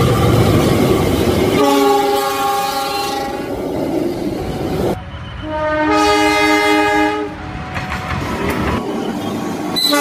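CC206 diesel-electric locomotive passing close with a heavy rumble, then locomotive air horns: one long chord blast about two seconds in, and another, after a cut, from about five to seven seconds in.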